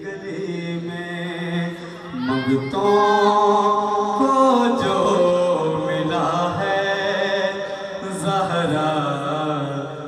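A man singing an Urdu devotional song (manqabat) unaccompanied into a hand microphone, holding long notes with a wavering ornamented run about two seconds in.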